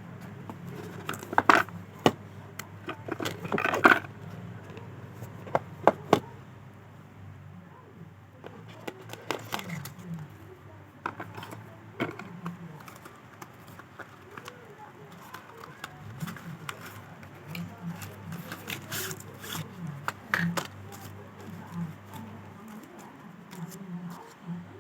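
Handling sounds of unboxing: scrapes, sharp clicks and crinkling as a phone box and its packaging are handled, with the loudest clicks in the first few seconds.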